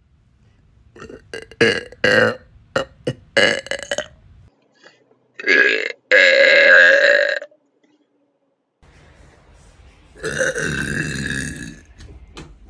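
A person burping repeatedly: a run of short bursts, then a long, loud burp about five seconds in, and another long burp near the end.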